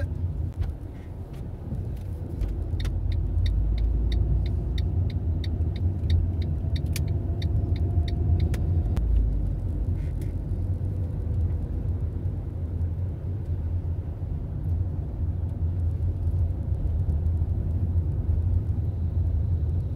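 Steady low rumble of road and engine noise inside a moving car in city traffic. A run of quick, evenly spaced ticks sounds between about three and nine seconds in.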